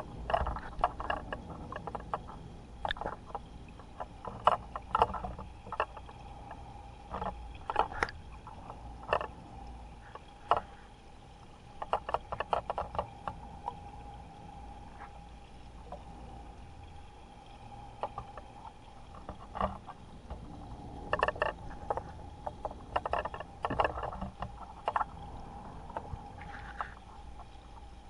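Giant octopus breathing in an aquarium tank: water splashes and gurgles in irregular clusters of sharp wet clicks as it pushes water out through its siphon. A steady hum runs underneath.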